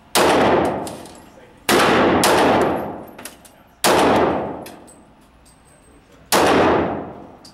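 Four pistol shots from a Wheaton Arms custom Glock, fired slowly about two seconds apart, each followed by a long echo off the walls of the indoor range.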